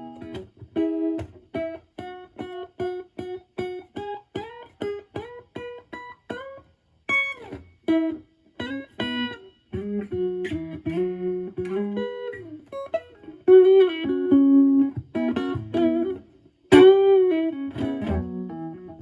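Clean electric guitar, a Strat with HSH pickups through a Marshall Valvestate clean channel, played through a Joyo JF-09 all-analog optical tremolo pedal: single notes and chords whose volume pulses on and off quickly and evenly.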